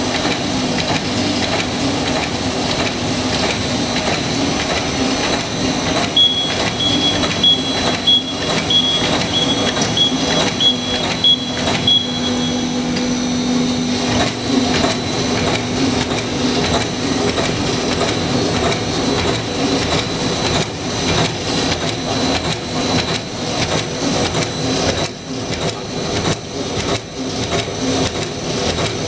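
Two-side-seal plastic bag making machine running: a steady mechanical clatter over a low hum, with repeated clicks from its moving parts. A run of short, faint high beeps sounds for several seconds in the middle.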